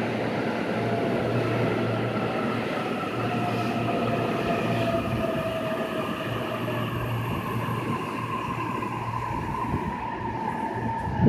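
JR Takasaki Line electric commuter train running along the platform, its wheels rumbling on the rails while the motor whine falls slowly in pitch as the train slows. A short knock comes right at the end.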